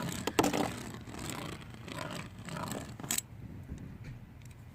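Two Beyblades, one of them 3D-printed, spinning and scraping against each other in a battle stadium, with sharp clicks of collision in the first second and a loud click about three seconds in, after which the scraping grows fainter as the round ends.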